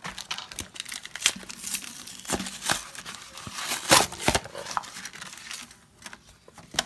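Pokémon card blister packaging, a clear plastic bubble on a cardboard backing, being torn open and crinkled by hand: an irregular string of sharp crackles and rustles, loudest about four seconds in.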